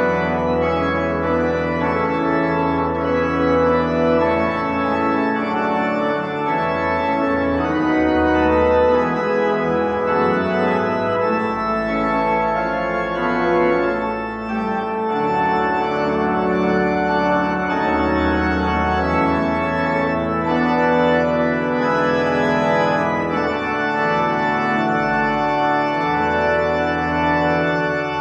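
Church organ playing the postlude after the dismissal: sustained chords over low bass notes that change every few seconds.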